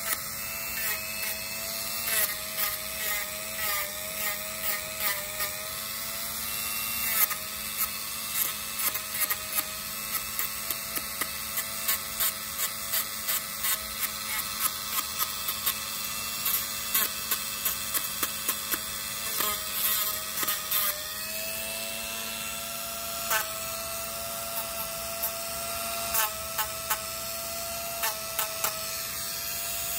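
A Dremel rotary tool with a sanding drum runs at a steady whine, grinding down a dog's toenails. The drum is tapped against the nail over and over, giving many brief grinding scrapes over the motor's tone.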